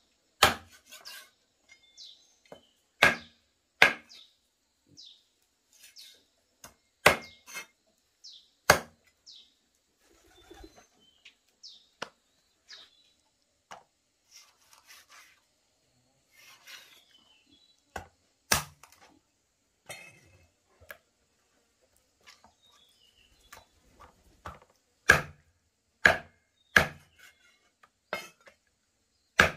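A heavy cleaver-like knife chopping raw chicken on a thick wooden log block: single sharp chops with long pauses between, then a quick run of three chops near the end.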